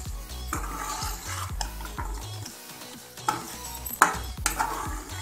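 Metal spatula stirring and scraping chicken karahi around a metal karahi, with two sharp clanks against the pan a little after halfway.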